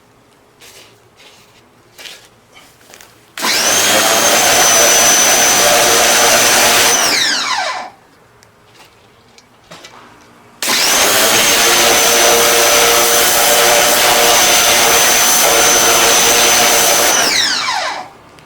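Ryobi 1600 psi electric pressure washer running in two loud bursts, one of about four seconds and one of about seven, each starting abruptly with a steady high whine over the motor and pump and winding down with a falling whine when it stops.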